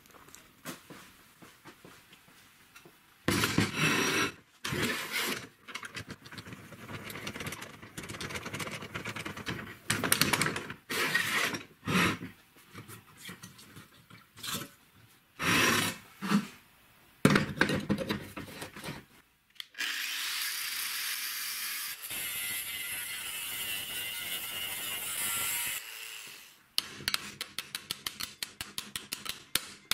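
Workshop handling of old car shock absorbers: irregular bursts of metal clanking and rubbing, then a steady hiss lasting about six seconds. Near the end comes a quick run of hammer blows on a steel strut body clamped in a vise.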